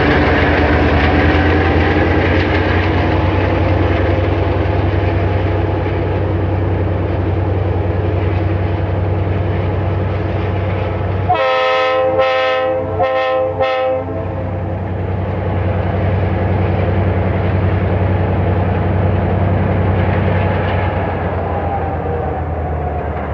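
CSX diesel-electric locomotives running at the head of a coal train, a steady engine drone throughout. About eleven seconds in, the locomotive air horn sounds a quick run of short blasts lasting some two and a half seconds.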